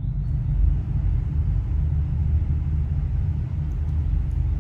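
QuietCool whole-house fan running on high speed, a steady low rumble of motor and moving air.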